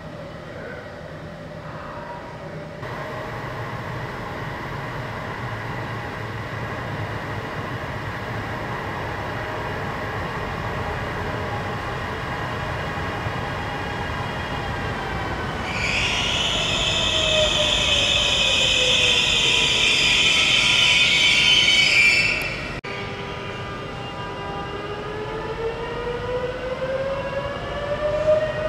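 Electric train in the tunnel, its rumble growing and its motor whine sliding in pitch. A loud high-pitched shriek is heard for about six seconds and stops suddenly. Near the end a new whine rises steadily in pitch.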